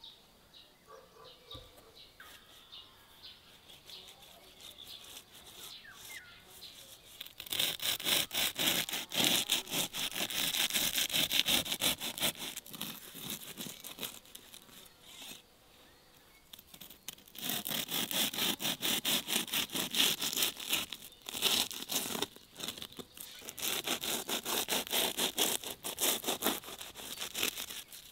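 A long knife sawing through the thin flatbread crust of a shah pilaf, a dense, crisp crackling crunch. It starts about a quarter of the way in, pauses for a couple of seconds around the middle, then carries on.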